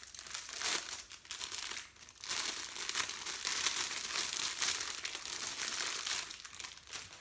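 Clear plastic bag crinkling as it is handled and pulled open to unwrap a small bottle. The crackle is irregular and continuous, with a brief lull about two seconds in.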